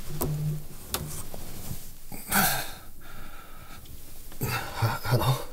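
A mobile phone ringing stops within the first second as it is picked up. Then a man woken from sleep lets out a loud groaning breath, and near the end gives a few low, sleepy grunts as he brings the phone to his ear.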